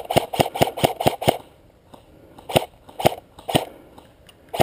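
Airsoft rifle firing single shots in quick succession, about five a second for just over a second. After a short pause it fires three more, about half a second apart.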